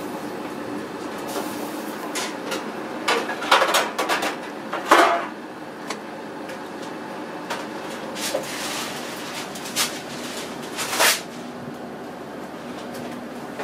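Kitchen clatter: scattered knocks and clinks of pots, lids and utensils, thickest in the first five seconds and loudest about five seconds in, over a steady background hum.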